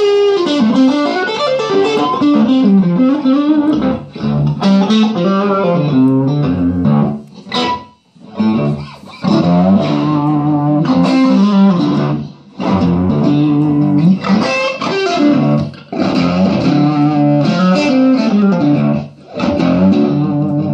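Electric guitar played through a 6V6-powered, 20-watt 1x12 tube combo amplifier, with the guitar's tone knob turned down to cut the high end, giving a fuzzy, muffled overdriven tone. Several short phrases of single-note lines, with brief breaks between them.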